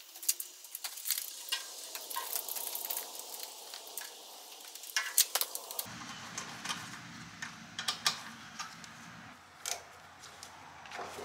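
Scattered small clicks and rattles of plastic and metal as gloved hands fit a replacement ignition coil on a Kohler EFI twin engine, seating its connector and plug wire and handling its mounting bolts. A low steady hum comes in about halfway through.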